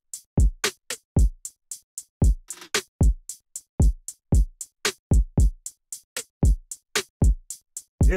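Intro music: a sparse drum-machine beat with deep kick drums that drop sharply in pitch, sharp hi-hat ticks and no melody.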